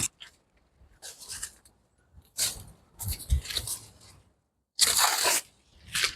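Dry plant material crunching and tearing as it is handled, in about five short separate bursts.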